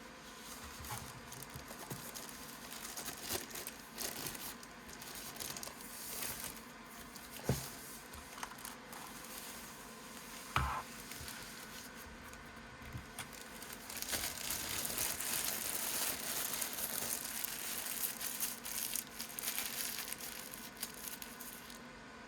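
Packaging being handled during an unboxing: plastic and paper rustling and crinkling, with two sharp knocks a few seconds apart near the middle and louder, continuous crinkling in the second half.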